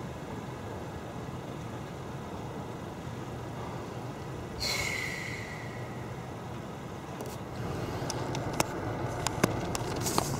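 Steady low rumble of a freight train standing at a grade crossing, with one short squealing hiss about halfway through that fades over a second. Near the end it grows a little louder, with a few sharp clicks and knocks of the camera being handled.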